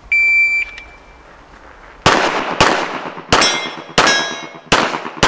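An electronic shot timer gives one beep of about half a second. About two seconds later a Smith & Wesson M&P9 Pro 9mm pistol fires a string of about six shots, a little over half a second apart.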